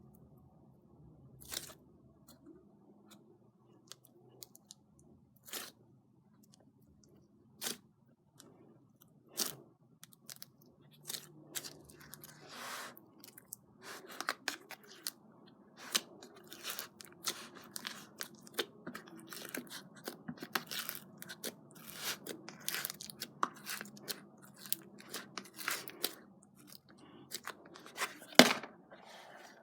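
Slime being squeezed and poked by hand, giving sharp crackles and pops: a few at a time over the first dozen seconds, then coming thick and fast, with one loud pop near the end.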